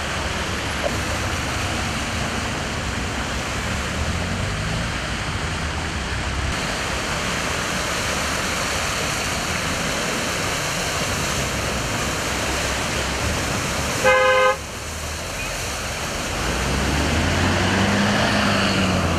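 Cars driving through deep floodwater on a road: a steady rush of splashing water and tyre spray over running engines. A car horn honks once, briefly, about two-thirds of the way through, and a heavy engine, a city bus wading through the water, grows louder near the end.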